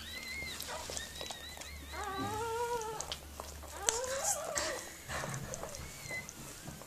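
Newborn puppies squeaking and crying in short, wavering calls, some high and thin, one lower and longer, while the mother dog licks and nudges them, with small wet clicks in between.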